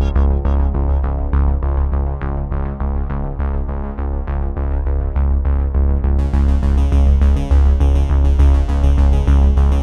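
Synthesizer background music with a steady bass and evenly repeating keyboard notes; a bright, high percussion layer joins about six seconds in.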